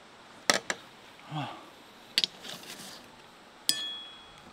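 Wooden chopsticks clicking against a metal plate, a few sharp taps, the last one near the end setting the plate ringing briefly. A short hum of a voice comes in between.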